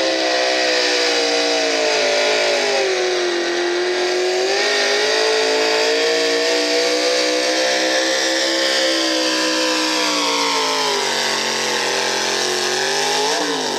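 V8 hot rod pulling tractor's engine running at high revs under load as it drags the sled, the pitch wavering as it goes. Toward the end the revs sag, then rise sharply and drop away right at the finish.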